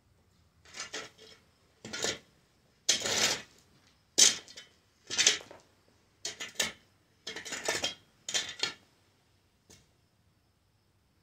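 Steel shovel blade scraping and scooping gravelly dirt, about nine short scrapes roughly a second apart.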